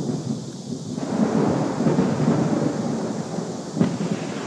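Thunder rumbling low and continuous, growing louder about a second in, with rain falling.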